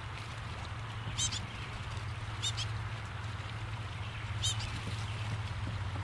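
A bird gives three short, high-pitched calls about a second or two apart, over a steady low hum and a constant background hiss.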